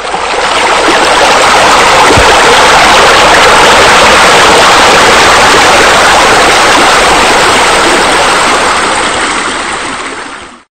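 Steady rush of falling, splashing water, fading in at the start and fading out over the last couple of seconds.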